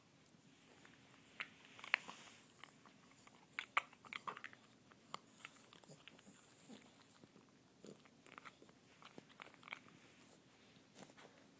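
English bulldog puppy chewing and gnawing a bottle cap: irregular faint clicks and crunches, thickest in the first half.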